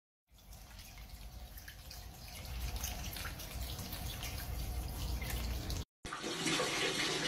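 Water leaking from a broken pipe at the foot of a tiled bathroom wall, spraying and splattering onto the flooded floor. After a sudden cut, a tap runs full into a bucket of water, a steadier and louder rush.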